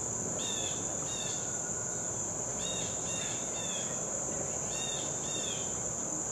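Steady high-pitched drone of an insect chorus, with short chirps repeated in twos and threes over it.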